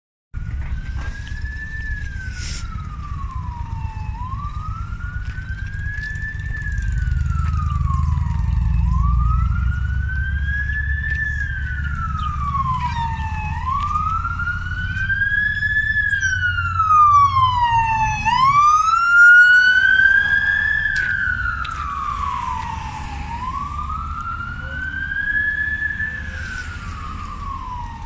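Police car siren in slow wail mode, rising and falling in pitch about every five seconds. It grows louder to its peak a little past the middle, then fades somewhat, over a low rumble of road traffic.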